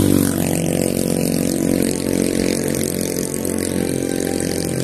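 Road traffic: a motor vehicle's engine running steadily close by, with an even, unbroken drone.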